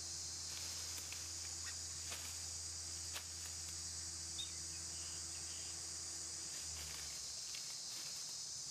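Steady chorus of insects, a continuous high-pitched buzz, with a low steady hum underneath that stops about seven seconds in. A few faint clicks and one short high chirp come in the middle.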